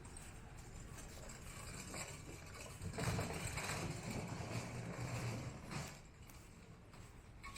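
Motor vehicle passing by. Its engine and tyre noise swells about three seconds in and fades away by about six seconds.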